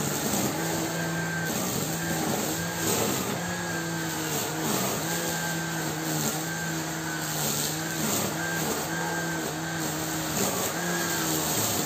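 Gardena electric grass trimmer running with a steady motor hum. Its pitch dips briefly every second or so as the line bites into the grass, with a swish of cut grass each time.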